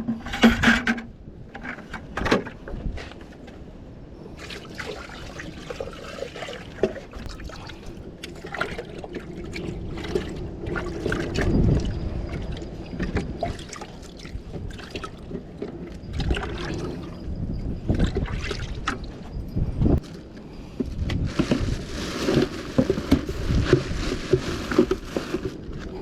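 Wind buffeting the microphone in gusts, over sloshing water, with scattered irregular knocks.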